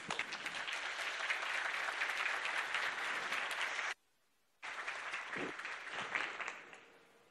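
Audience applauding, a dense patter of many hands clapping. The sound cuts out completely for about half a second around four seconds in, then resumes and fades out near the end.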